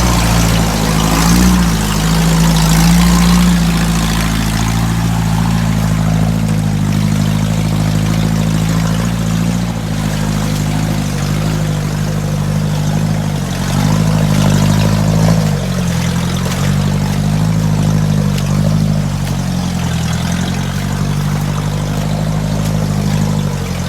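UAZ off-roader's engine running while driving slowly over rough forest ruts, its revs rising and falling a few times, with the muffler knocked off.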